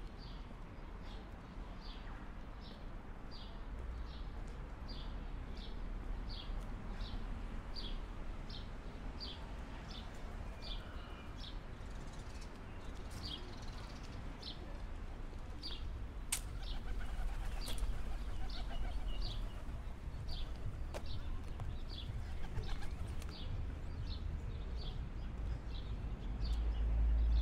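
Outdoor ambience during a walk: a steady low rumble of wind and distant traffic, with a short high chirp repeating at an even pace of a bit more than one a second, and a couple of sharp clicks about two-thirds of the way through.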